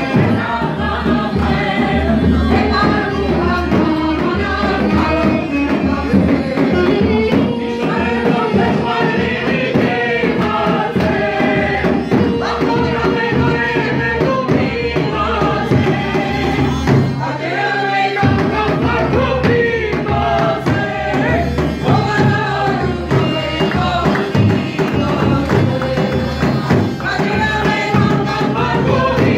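Live Armenian folk music: a woman and a man sing a lively song together through a microphone, over the beat of a dhol drum struck with a stick and a steady low accompaniment. The bass drops out for a moment about eighteen seconds in.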